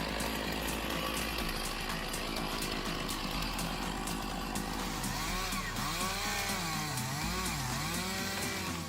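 Chainsaw running steadily while cutting. From about five seconds in, its engine pitch rises and falls repeatedly as it revs. Background music plays underneath.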